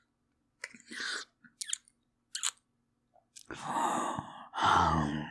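Kissing sounds from a voice actor's mouth: a few wet lip smacks and clicks, then two heavy breaths, the second with a low groan in it near the end.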